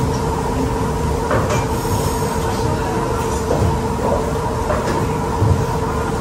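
Forks clinking and scraping on iron steak hot plates a few times, over a steady machine hum with a held tone in it.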